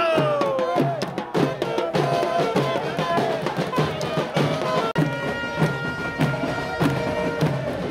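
Saxophone and drums playing a lively street-band tune, with a steady drum beat of about two hits a second. Just before five seconds in there is a sudden cut, and the music carries on with long held notes over the beat.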